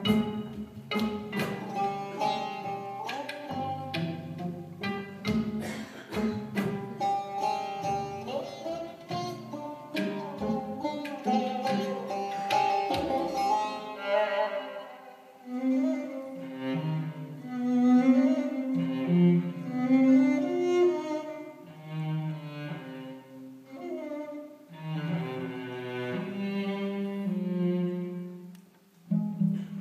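Persian classical music played live: a tar plucked in quick notes through the first half, then a bowed kamancheh carrying longer held lower notes.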